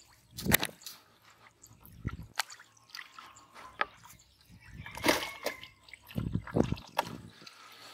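Water splashing and sloshing in several short, separate bursts.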